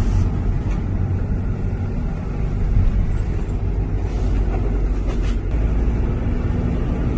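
Steady low rumble of a 2011 Toyota Coaster minibus on the move, heard from inside the cabin: engine and road noise.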